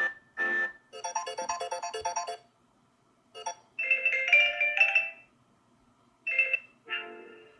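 Samsung Galaxy S8 stock ringtones playing from the phone's speaker in short snippets of bright electronic melody, several bursts with brief silent gaps between them, each cut off after a second or so.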